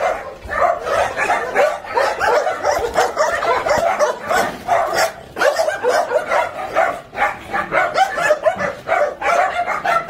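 A chorus of many dogs barking and yipping at once, overlapping without a break.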